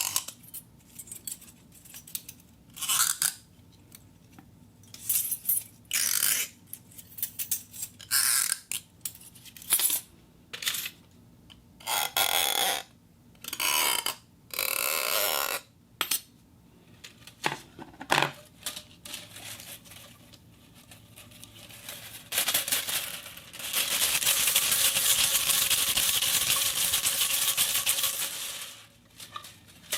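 Small metal gears and springs worked by hand: a string of short metallic rattles and scrapes, each under a second or so, then one continuous fast clicking rattle lasting about six seconds near the end.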